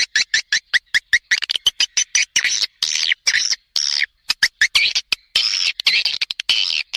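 Swiftlet lure call: rapid, high twittering chirps of edible-nest swiftlets, chopped into short bursts with brief gaps and a few longer runs, the kind played in swiftlet houses to draw birds in to nest.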